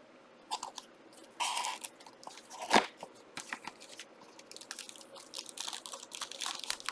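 Crinkling and tearing of a trading-card pack wrapper being opened by hand, with the cards handled close to the microphone: irregular crackles and clicks, and one sharp crack about three seconds in.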